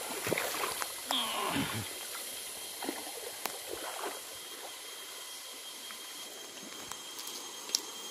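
Outdoor riverbank background: a steady high hiss with faint high steady tones, faint voices and a few light rustles and clicks in the first two seconds.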